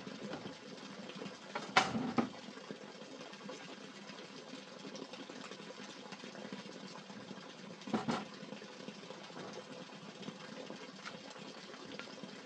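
Steady rushing of water with knocks on a bamboo floor: a short cluster about two seconds in and a single knock about eight seconds in, as things are set down.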